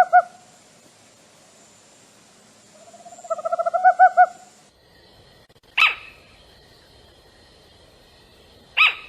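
Owl calling. First comes a quick series of about ten short hoots run close together, about three seconds in. Then, in a different recording, come two short, sharp calls that each drop steeply in pitch, about three seconds apart.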